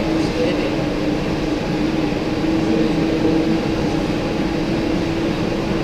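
Stationary exercise bikes whirring steadily as riders pedal hard, with a constant low hum.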